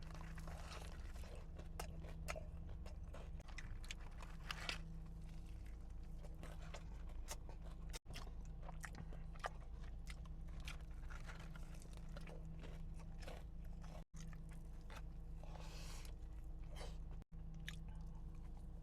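Close-miked biting and chewing of a fried chicken and waffles sandwich, with irregular crunches from the breaded chicken filet over a steady low hum. The sound drops out for an instant three times.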